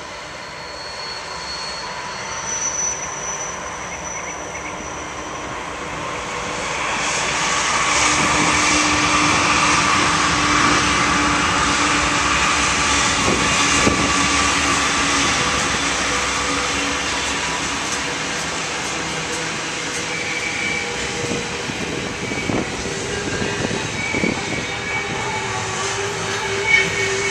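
Norfolk Southern diesel locomotives pulling a double-stack intermodal train pass close by, building to their loudest about eight to fourteen seconds in. Then comes the steady rumble of the container cars rolling past, with a few short clanks and thin squeals near the end.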